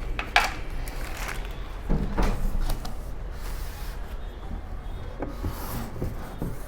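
Cardboard box and packaging being handled as a keyboard is unpacked: a sharp knock, then a louder cluster of knocks and scrapes about two seconds in, with brief rustling and a few lighter knocks later.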